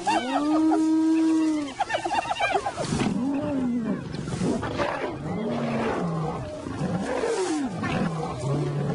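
Hyenas and lions fighting. A long, high, arching hyena call is followed by quick yelping cries over the first few seconds, then several lower, rough growling calls that rise and fall.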